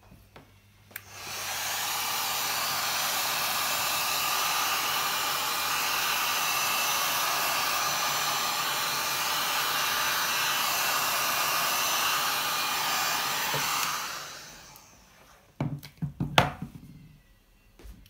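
Heat gun blowing steadily: it comes up to full blast about a second in, runs for about twelve seconds, then winds down; a few sharp knocks follow near the end.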